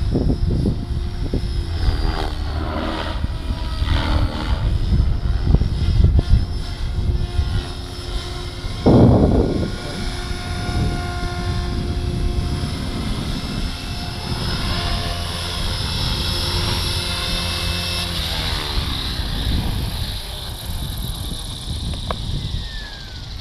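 Gaui X5 electric RC helicopter flying on Switch 523 mm rotor blades: a steady whir and whine from the rotor and drivetrain, under a low rumble of wind on the microphone. There is a loud swell about nine seconds in. Near the end the pitch falls as the rotor slows.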